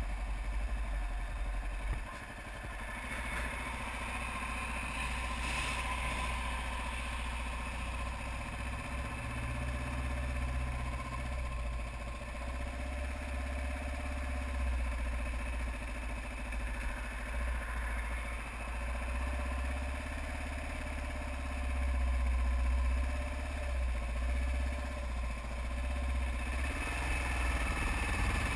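Kawasaki KLR 650 single-cylinder dual-sport engine idling steadily while stopped, then revving as the bike pulls away near the end.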